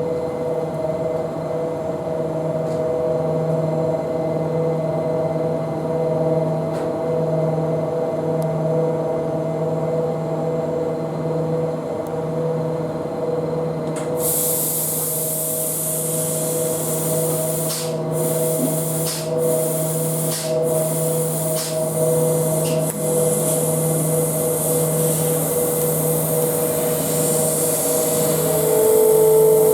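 Mitsubishi ML2512HV-40CF laser cutting machine with a 4.0 kW oscillator running, with a steady mechanical hum. About halfway through, a loud hiss starts suddenly and cuts out briefly several times. A short steady tone sounds near the end.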